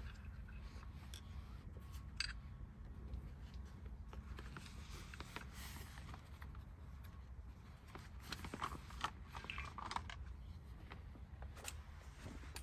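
Faint handling sounds of a Nikon 600mm f/4 telephoto lens being taken out of its case and its large hood handled: rustling and light clicks, sharper about two seconds in and again around eight to ten seconds in, over a low steady rumble.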